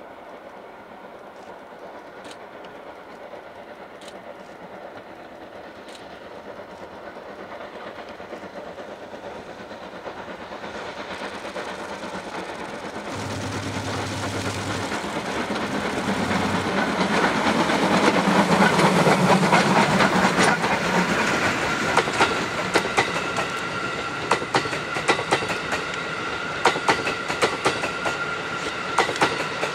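D51 200, a 2-8-2 steam locomotive, approaches with a growing sound that peaks about two-thirds of the way through as it passes. Its coaches then roll by with quick sharp clicks of wheels over rail joints.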